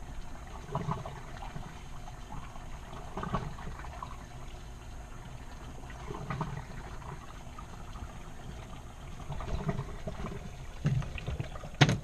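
Rinse water draining out of a twin-tub washing machine's wash tub through its drain hose, a steady run of water with irregular swells. A sharp knock comes just before the end.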